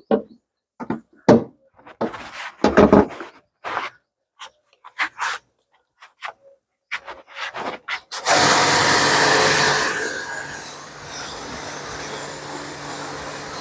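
A few scattered clicks and knocks, then about eight seconds in a pressure washer starts up with a low motor hum and its foam-cannon lance sprays with a loud hiss. The spray is loudest for the first couple of seconds, then runs on steadily at a lower level.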